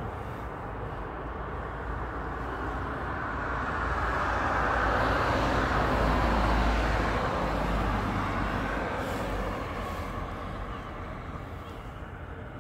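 A car passing by on the road: its tyre and engine noise swells over a few seconds, peaks about halfway through, and fades away.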